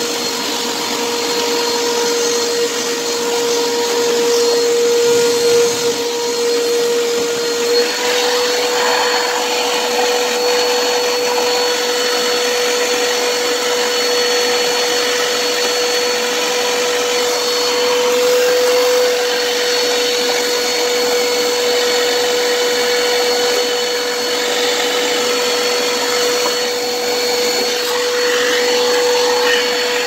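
Vacuum cleaner running continuously with its hose wand, a steady hum-and-whine whose pitch steps up slightly about eight seconds in as the suction load changes.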